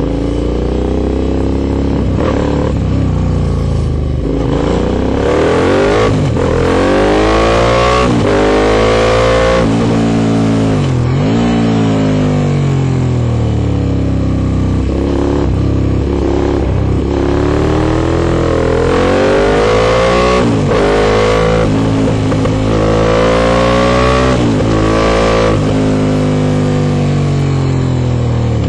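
Aprilia Shiver 750's V-twin engine through a full Arrow Dark Thunder exhaust, pulling hard with its note rising again and again and dropping sharply between pulls, over a dozen times.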